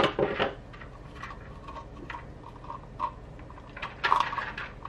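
Small plastic clicks, taps and scrapes as a gauge's circuit board and LCD are worked out of their plastic housing, wires rustling with them. A burst of sharp clicks comes at the start and another about four seconds in.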